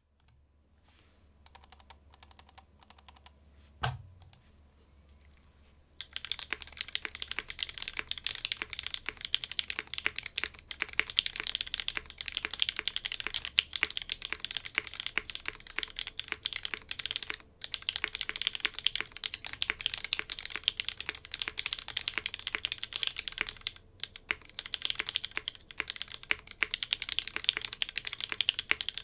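JJW Cloudline mechanical keyboard, O-ring mounted on a polypropylene plate, with lubed vintage Cherry MX Black linear switches and GMK keycaps, being typed on. A few scattered keystrokes and a single low thump come in the first few seconds, then steady fast typing starts about six seconds in, with two short pauses.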